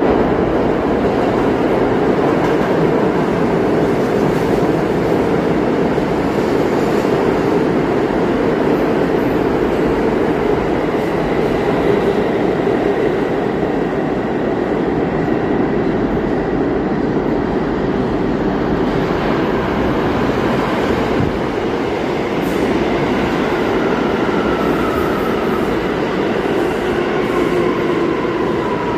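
New York subway trains rumbling through an underground station: an R46 express runs past on the far track, then an R179 local pulls in alongside the platform. Near the end its motors whine down in pitch as it brakes to a stop.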